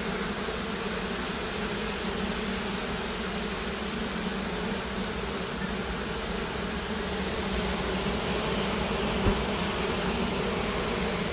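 Honeybees from a colony nested inside a cement wall buzzing in a steady, continuous drone.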